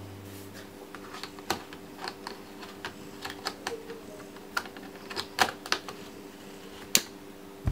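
Irregular small clicks and taps of a camera lens being handled and twisted onto a Canon EOS 90D's EF bayonet mount, the sharpest click about seven seconds in. A faint steady hum lies underneath.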